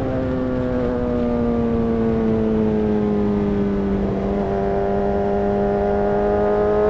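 2008 Honda CBR600RR's inline-four engine running under way at steady revs, its pitch sinking slightly over the first few seconds, then holding and creeping up again near the end.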